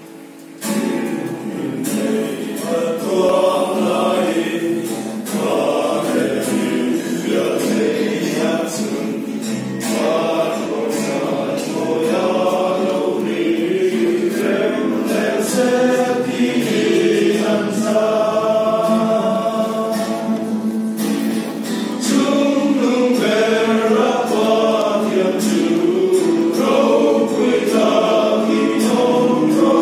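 Men's choir singing a hymn together, coming in less than a second in and swelling louder about two-thirds of the way through.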